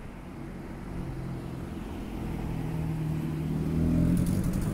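A motor vehicle's engine running at a steady pitch, growing louder as it draws near and peaking near the end.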